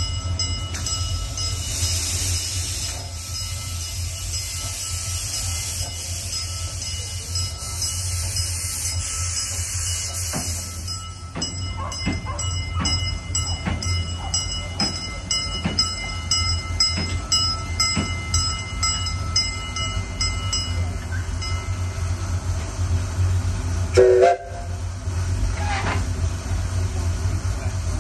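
Miniature steam locomotive rolling slowly onto a turntable. Steam hisses and the wheels and running gear give many light regular clicks, and one loud, brief squeal falling in pitch comes about 24 seconds in.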